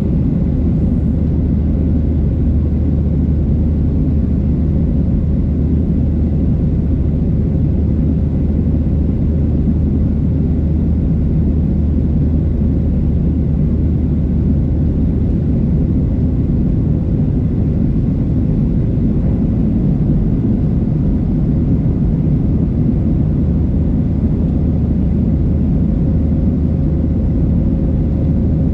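Cabin noise inside a Boeing 737-700 in its climb after takeoff: a steady, loud rumble of the CFM56-7B turbofans and airflow, with a low drone and a faint steady hum above it.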